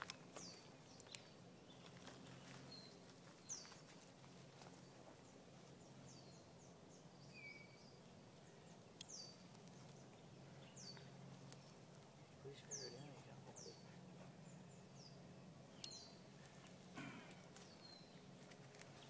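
Faint bush ambience: a bird repeating short, high notes that fall in pitch, one every second or two, over a low steady hum, with a couple of soft clicks.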